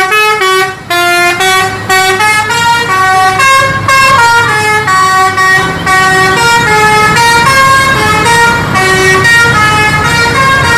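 Tour bus's multi-tone musical 'telolet' horn playing a fast tune of stepped notes, loud and almost unbroken, with a short break just under a second in.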